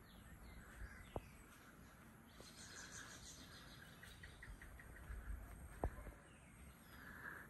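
Faint dusk ambience of birds chirping and calling, with a quick run of ticking chirps about four seconds in. Two sharp clicks stand out, one about a second in and a louder one near the end.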